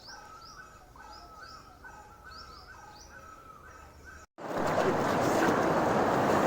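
Birds chirping in quick repeated short calls, each falling in pitch. About four seconds in the sound cuts off abruptly, then a loud, steady rushing noise starts.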